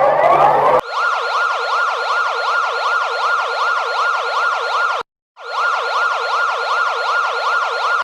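Electronic emergency alert siren tone. It starts with a fast run of rising sweeps, then about a second in turns to a wail going up and down about three times a second. It cuts out for a moment just past the middle, then resumes.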